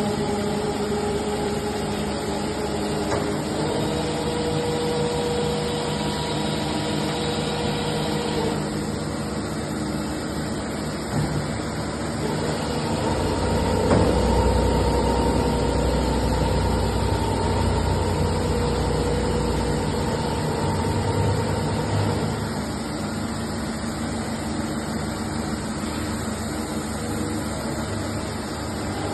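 Eumach FBE CNC milling machine running: a steady mechanical hum with whining tones that step to new pitches several times, and a heavier low rumble through the middle stretch.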